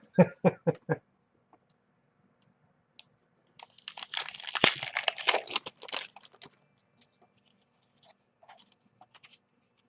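Trading-card pack wrapper being torn open and crinkled, a dense rustling tear lasting about three seconds from a few seconds in, followed by a few faint clicks of cards being handled.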